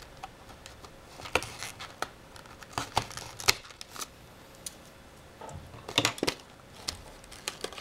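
Scissors snipping at the tape on a small cardboard box: a handful of sharp snips and clicks spread through the first four seconds, then a louder cluster of knocks and rustling as the box is handled.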